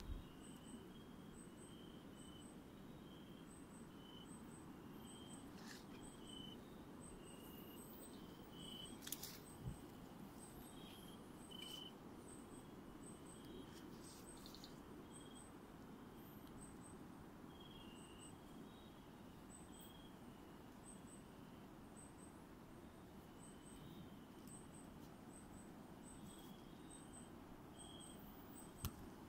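Faint night chorus of calling insects and frogs: pairs of very high ticks repeating about once a second over scattered short chirps, with a few sharp knocks from the camera being handled.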